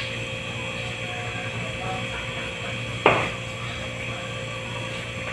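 A single sharp knock about three seconds in, from the formula scoop as a level scoop of milk powder is measured into the feeding bottle, over a steady background hum.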